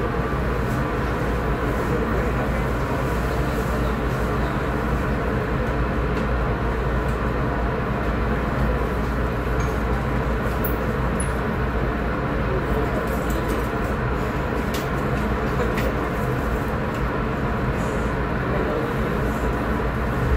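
Steady rumble and hiss inside the carriage of a Taiwan Railway EMU500-series electric commuter train, with a few faint light ticks.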